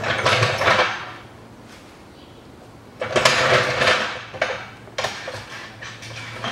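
Metal scraping and knocking as a new front engine mount is forced down into its bracket, a tight fit that won't seat easily. Two rasping scrapes about a second long, the second about three seconds in, followed by a few sharp clicks.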